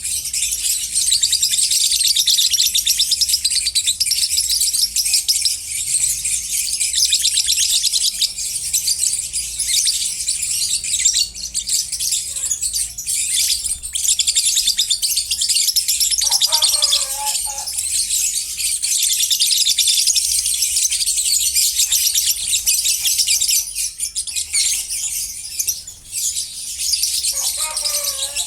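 A flock of lovebirds chattering and chirping in a steady, dense high-pitched din.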